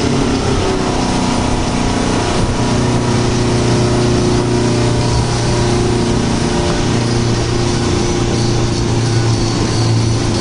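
Speedboat engine running under way, with a steady rush of water and wind over it.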